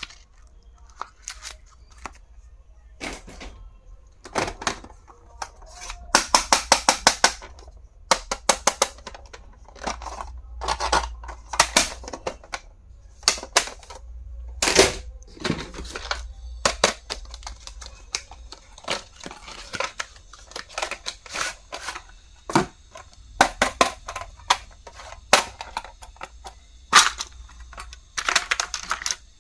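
Hands handling stationery and its plastic packaging: a string of sharp clicks, snaps and rustles, with a quick rattling run of clicks about six seconds in.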